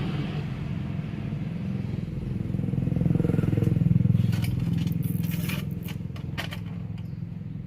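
A small engine passing by, rising to its loudest about four seconds in and then fading, with a few light clicks of handled parts in the second half.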